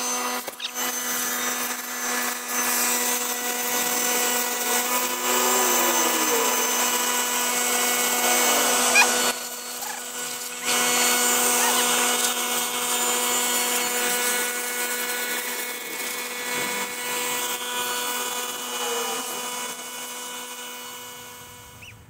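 Small pancake air compressor running with a steady motor hum, while compressed air hisses out of the hose nozzle blowing dust out of a vacuum cleaner. The air blast breaks off for about a second some nine seconds in, then resumes, and the whole sound fades slowly near the end.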